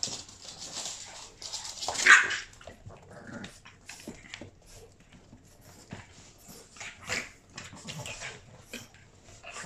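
Boston terriers play-fighting: one loud bark about two seconds in, then scuffling with scattered short ticks and a smaller dog sound about seven seconds in.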